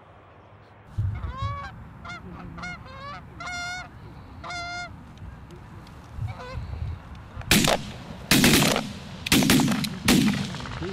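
Canada geese honking as a flock comes in. About seven and a half seconds in, this gives way to about four shotgun blasts in quick succession, much louder than the honks.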